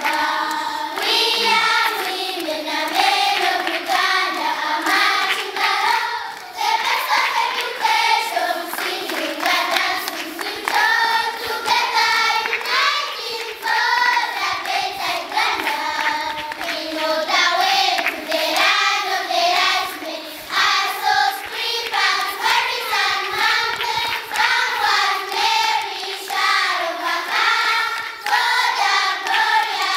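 A group of schoolchildren singing together, with hand clapping.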